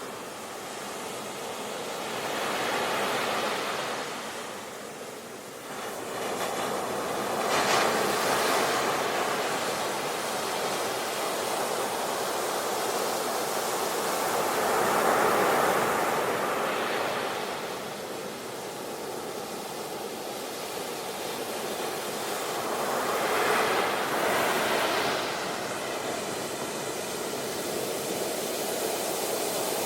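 Ocean waves breaking and washing onto a beach, a steady surf noise that swells every several seconds as each wave comes in.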